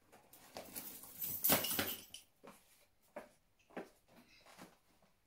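High-heeled shoes clicking on a tiled floor as someone walks, four separate steps a little under a second apart, after a couple of seconds of rustling.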